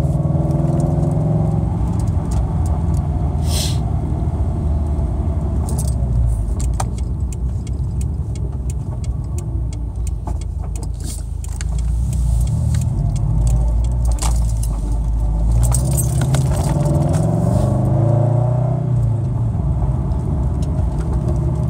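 Scion FR-S flat-four engine and aftermarket exhaust (equal-length header, catless front pipe, Invidia N1) heard from inside the cabin while driving under light throttle, kept below 4,000 rpm. The engine drones low and steady, with its pitch rising and then falling near the end as it accelerates and shifts. Scattered light clicks and rattles sound over it.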